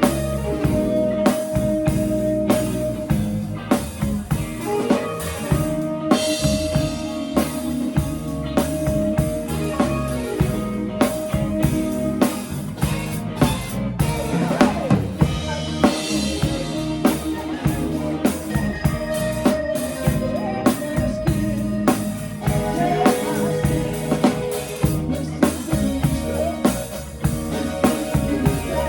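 Band music with a drum kit keeping a steady beat, snare and bass drum prominent under sustained instrument notes.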